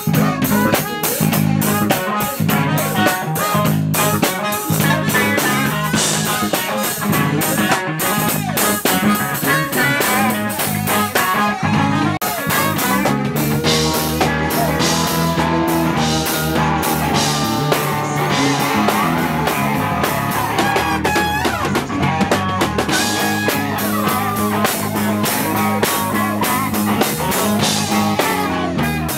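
Live band playing an instrumental passage: guitar over a drum kit with a steady beat and sustained low bass notes.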